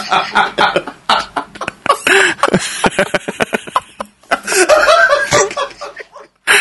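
Men laughing hard in breathy bursts and chuckles.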